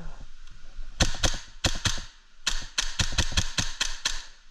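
Novritsch SSQ4 HPA airsoft rifle dry-firing with no magazine in, its bolt cycling with sharp clacks but sending out no BBs. A few spaced shots come about a second in, then a quick string of about nine lasting under two seconds.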